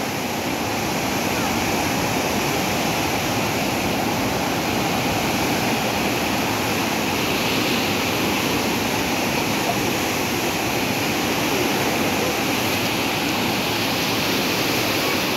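Steady rushing of turbulent water pouring through the open gates of a river barrage, churning white as it is released into the canals.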